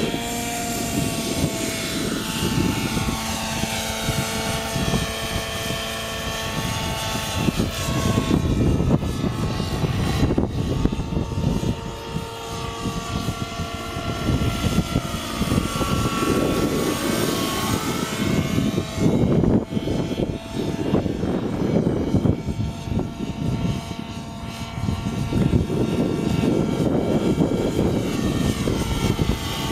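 Thunder Tiger Raptor 90 RC helicopter's nitro two-stroke glow engine and rotors running in flight: a whine of several tones that rises and falls in pitch again and again as it manoeuvres, over a rough rushing noise.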